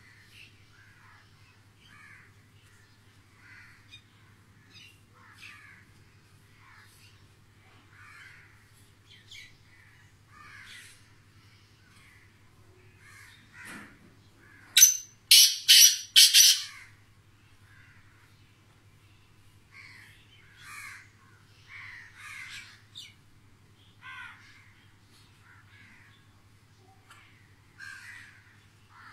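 Caged white black francolin (kala teetar) giving a loud, harsh call of four or five grating notes in under two seconds, about halfway through. Softer chirping calls recur every second or so, over a low steady hum.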